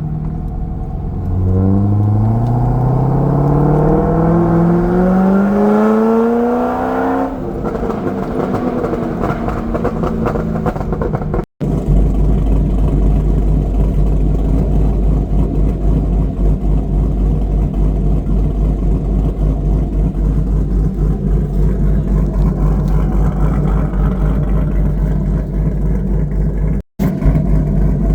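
V8 of a 2007 Corvette with headers and a 224 cam, accelerating with its pitch rising steadily for about six seconds, then backing off into a crackle of exhaust pops. After a couple of brief dropouts it settles into a steady low, choppy rumble.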